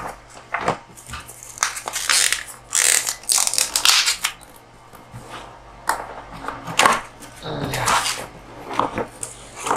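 Plastic shrink wrap on a cardboard router box crinkling and rustling as hands turn and rub the box, in uneven bursts with a quieter stretch in the middle.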